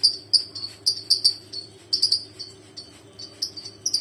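Lovebirds chirping: a rapid string of short, high, shrill calls, several a second, growing sparser partway through and picking up again near the end.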